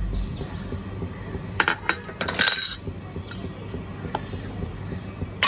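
Silicone spatula stirring chopped onion into grated paneer in a plastic bowl, with a few light knocks and clinks of kitchenware, most at about one and a half and two and a half seconds in.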